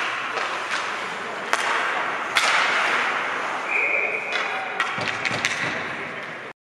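Ice hockey play in a rink: sticks and puck clacking sharply on the ice and boards over a steady wash of skates and voices, with a referee's whistle blowing once, briefly, about four seconds in to stop play at the net. The sound cuts off suddenly near the end.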